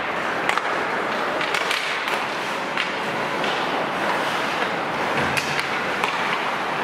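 Ice hockey play: skate blades scraping the ice and sharp clacks of sticks and puck over a steady hiss of rink noise, with several clacks close together about five seconds in.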